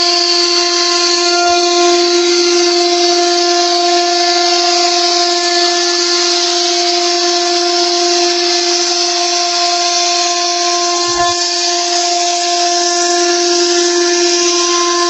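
AOL woodworking CNC router spindle running steadily as its bit carves a wooden door: a constant whine over the noise of the cutting.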